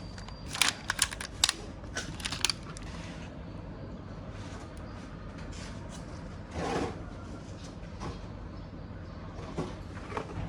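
Plastic toy parts clicking and tapping as an action figure is handled: a quick run of sharp clicks in the first couple of seconds, a brief rustling slide about midway, and a couple of light clicks near the end, over a steady low hum.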